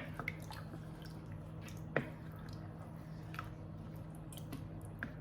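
Kitchen cooking sounds: a low steady hum with a few small sharp clicks and drips from the pot, the loudest right at the start and about two seconds in.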